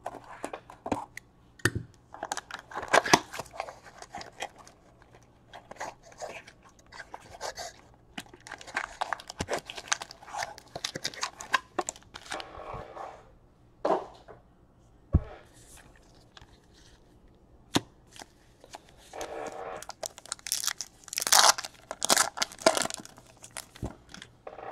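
Shrink wrap on a Topps Gold Label baseball card box being slit with a box cutter and torn off, then card packs being ripped open, in irregular bursts of tearing and crinkling plastic with light clicks of cards and cardboard.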